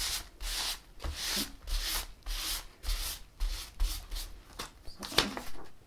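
Paper towel rubbed back and forth over wax-coated paper, wiping off loose wax crumbs, in a steady run of strokes about two a second.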